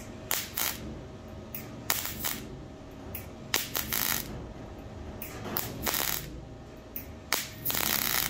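Flux-core wire-feed welder spot-welding a small hole in steel car sheet metal shut: a series of short arc crackles, each well under a second, with pauses between them as the hole is filled spot by spot. The last burst near the end is the longest.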